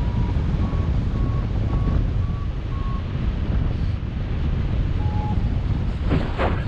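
Airflow rushing over the microphone in flight, with a variometer beeping short tones about twice a second for the first three seconds and then once more at a lower pitch about five seconds in: the climb tone of a pilot circling in thermal lift. Near the end there is a brief louder gust of wind noise.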